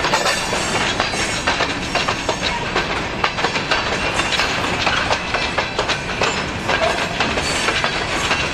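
Freight train of covered hopper cars rolling steadily past close by: a continuous rumble and rattle with frequent wheel clacks over the rail joints.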